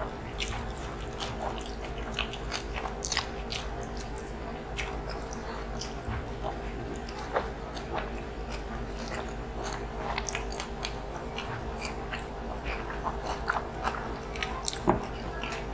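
Close-miked mouth sounds of eating lechon kawali (deep-fried pork belly) and rice in coconut-milk sauce by hand: chewing, lip smacks and scattered crunchy bites, many short sharp clicks.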